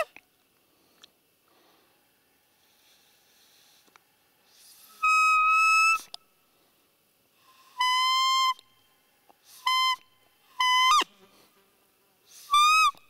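Roe deer 'fiep' call: five short, high, clear whistled peeps with a steady pitch. The first comes about five seconds in and lasts about a second, and the rest are shorter and spaced over the last five seconds.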